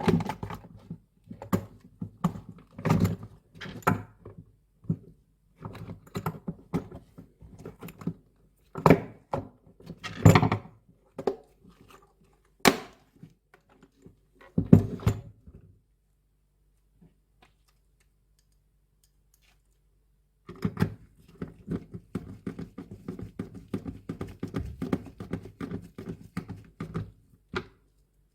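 Fan parts being handled: irregular knocks, clicks and rattles, with a few heavier thunks in the first half. A few seconds of near quiet follow, then a dense run of small clicks and rattles.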